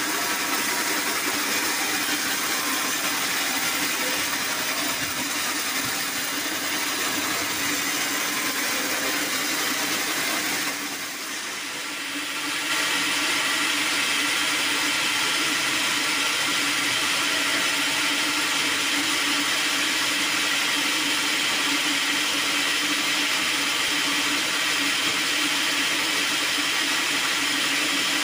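Sawmill saw cutting acacia wood, a loud steady mechanical noise. About eleven seconds in it drops briefly. It then gives way to a band sawmill running steadily, with a higher, hissier edge to the noise.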